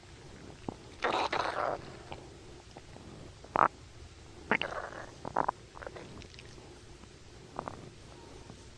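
Human stomach rumbling: a string of irregular gurgles and short squelches, the longest and loudest about a second in, with another sharp short gurgle a little past three and a half seconds.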